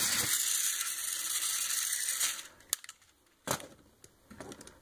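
Small battery-driven motor and plastic gearbox of a toy robot kit whirring, cutting off about two and a half seconds in, followed by a few light plastic clicks and knocks as the robot is handled.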